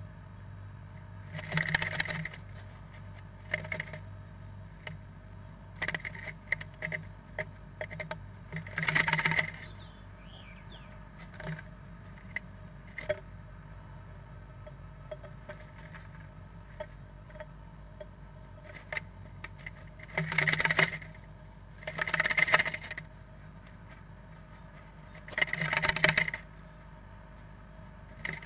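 Great tit moving about inside a wooden nest box while building its nest: bursts of scratching and rustling as its claws scrape the box and it works the nest material, with scattered small clicks in between, coming every few seconds.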